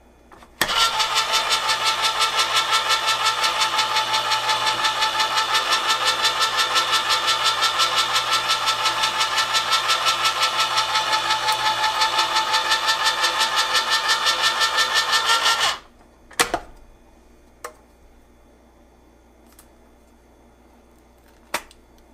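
Hamilton Beach Smooth Touch electric can opener motor running as it cuts around a large oval sardine can, a steady whirring with a fast, even pulsing several times a second. After about fifteen seconds it stops suddenly, followed by a sharp clack and a couple of light clicks.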